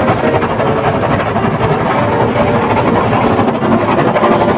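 Automatic car wash heard from inside the car: water jets and washing machinery rushing and rumbling over the body, loud and steady.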